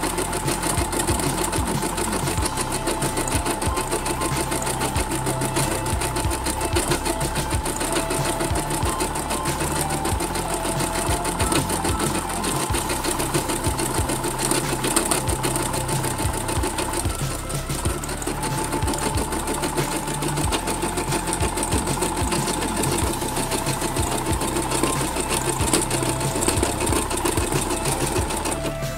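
Computerized embroidery machine stitching out a design: the needle goes up and down in a fast, steady rattle over a steady motor whine that drops out briefly just past halfway.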